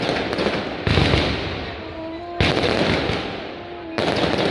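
Aerial fireworks bursting overhead and echoing between tall buildings: three loud bangs about a second and a half apart, each followed by crackling and a slowly fading echo.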